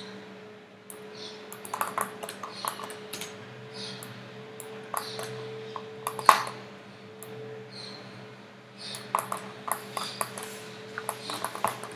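Scattered sharp clicks from a computer mouse and keyboard, coming in small clusters with one louder click about six seconds in, over a steady electrical hum.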